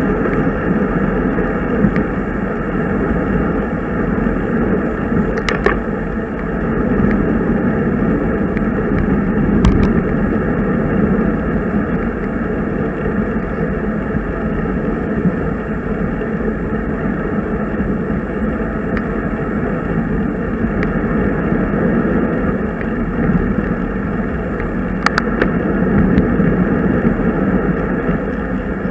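Steady rushing wind and road noise on a bicycle-mounted camera's microphone while riding, with a few sharp clicks.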